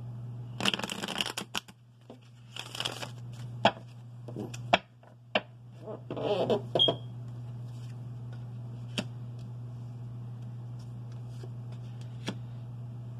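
A tarot deck shuffled by hand: four rustling bursts of cards in the first seven seconds, then a couple of light clicks as cards are set down. A steady low hum runs underneath.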